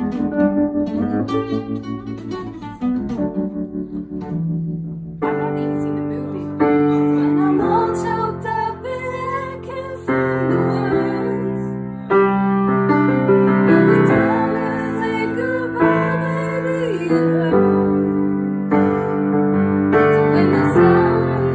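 Music: sparse plucked notes at first, then from about five seconds in a fuller song with piano and singing.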